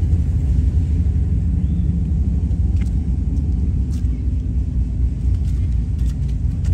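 Steady low rumble of vehicle engines running, with a few faint clicks about three and four seconds in.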